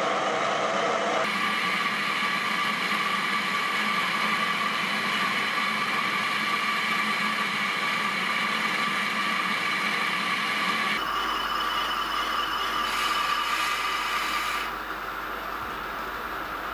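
A workshop machine running steadily with a hum and a whine. The sound changes abruptly about a second in and again near eleven seconds, and drops a little near the end.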